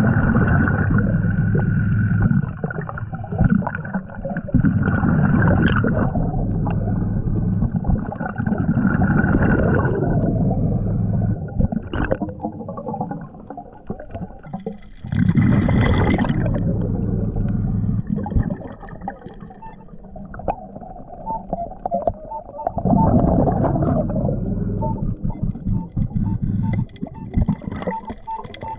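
A scuba diver breathing through a regulator underwater: bubbling exhalations surge every few seconds, with quieter stretches between. In the last third a string of short electronic beeps sounds over the breathing.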